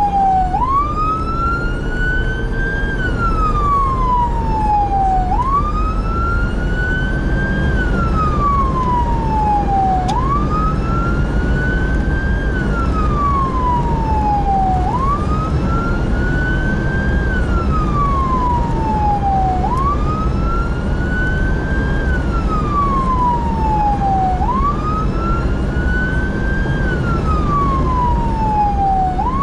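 Emergency vehicle siren on a slow wail, rising and falling about every five seconds over the steady rumble of the engine and road noise of the vehicle driving.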